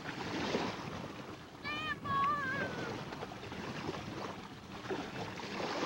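Steady wind and surf noise on an outdoor microphone, with a brief high-pitched wavering call about two seconds in, followed at once by a second, longer one.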